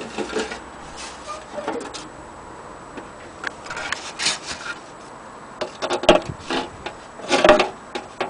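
Handling noise: a hand rubbing and bumping against the metal horn of an antique gramophone, irregular scrapes and knocks, loudest about six and seven and a half seconds in.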